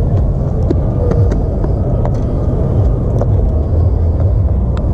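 Steady low rumble of wind buffeting an action camera's microphone, with a few faint clicks.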